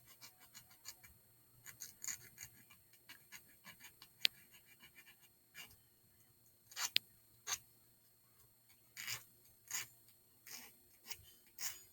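Faint short strokes of a small metal file rasping on the cut end of a 16-gauge wire clasp, rounding off its sharp tip, with two sharp clicks, about four and seven seconds in.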